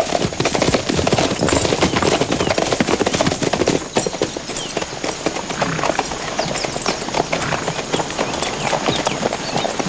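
Horses' hooves clip-clopping, a dense, continuous run of quick knocks.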